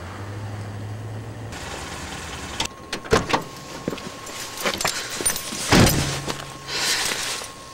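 A car engine running with a low steady hum, then car-door sounds: a few clicks and knocks, one loud door slam about six seconds in, and a short rustle after it.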